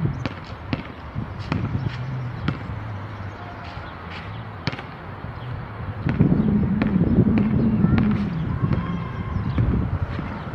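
Basketball bouncing on an outdoor court: irregular sharp knocks, over a low rumble that grows louder about six seconds in.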